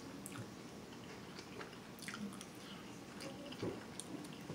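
Close-miked chewing of food, with scattered small wet clicks and smacks of the mouth.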